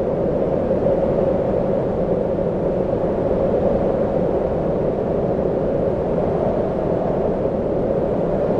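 Steady wind noise, an even rushing hiss with a low rumble underneath and no distinct gusts.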